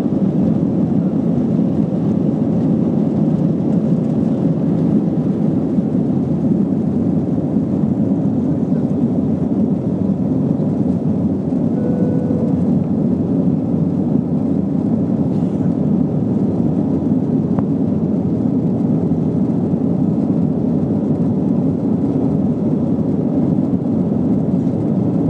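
Cabin noise of an Airbus A321-214 taking off and climbing out, heard from a window seat: its CFM56-5B turbofans at takeoff power make a steady, low rushing noise together with the airflow.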